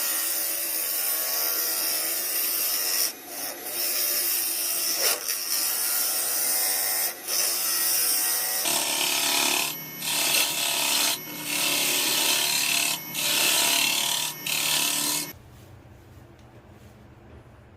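Wood being abraded by a sanding or grinding tool: a steady rough rubbing noise with several brief breaks. It stops suddenly about 15 seconds in, leaving only a faint low hum.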